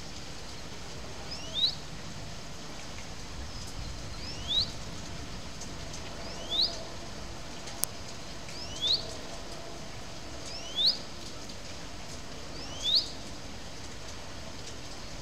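A bird repeating a single short, rising call six times, about every two seconds, over a steady hiss of falling rain.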